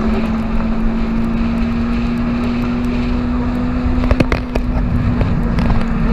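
Supercar engine running at steady revs, heard from a camera mounted on the car's body, its note held and rising slightly as it drives on the circuit. A few sharp knocks come about four seconds in.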